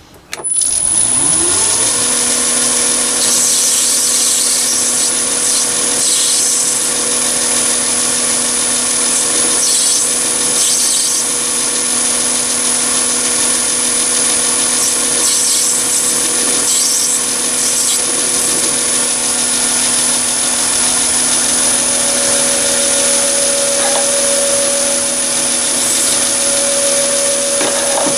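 Chinese mini lathe starting about half a second in, its motor spinning up with a rising whine to a steady running hum and high-pitched whine. A grooving tool cutting grooves into the spinning brass piston adds a scraping hiss that comes and goes over the first twenty seconds or so.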